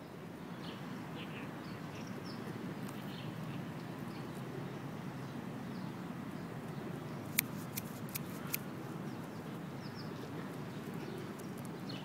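Outdoor city-park ambience: a steady low background rumble with scattered short bird chirps, and a quick run of about five sharp clicks a little past the middle.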